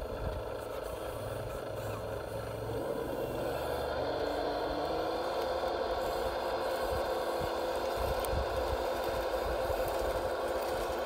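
Radio-controlled CAT D10T bulldozer model running as it crawls across sand: a steady whine that steps up in pitch about four seconds in and then holds.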